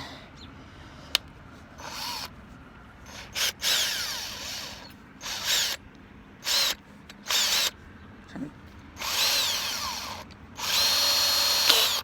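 Small power drill run in about eight short bursts, its motor spinning up and winding down each time, the last two runs the longest and steadiest, while drilling at a rivet that will not come out.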